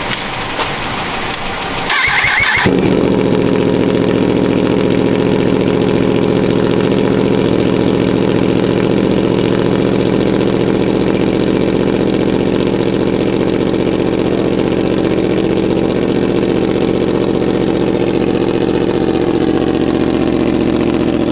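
2025 Yamaha R1's crossplane inline-four, fitted with an SC Project CR-T full exhaust, cranks briefly on the starter and catches about two and a half seconds in. It then idles steadily, really loud through the new exhaust.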